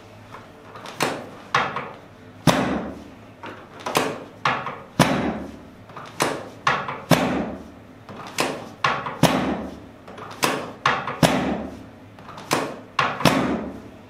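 Chiropractic drop table's drop section clunking down again and again under quick hand thrusts on the lower back and pelvis. About twenty sharp clunks, some in quick pairs, roughly one every half second to a second.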